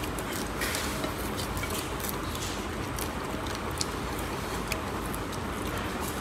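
Quiet eating at a table, hands and food on plates, with a few faint clicks and chewing over a steady background hum.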